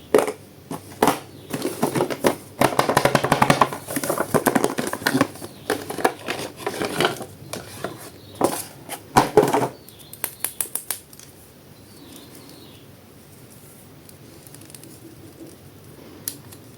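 Crackling and rustling of plastic toy packaging being handled, in dense bursts for the first ten seconds or so, then dying away to faint background noise.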